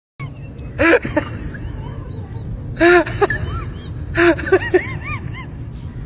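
A person's voice in three short bursts, over a steady low rumble.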